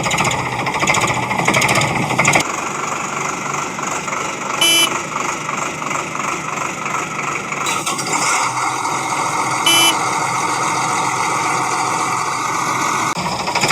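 Steady machine running noise that changes abruptly twice, with a short high beep about every five seconds.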